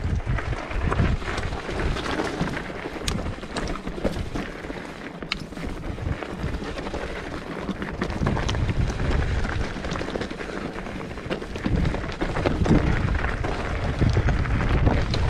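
Mountain bike rolling over a rough, stony trail: tyres on loose stones and the bike rattling with many small knocks, with wind rumbling on the microphone.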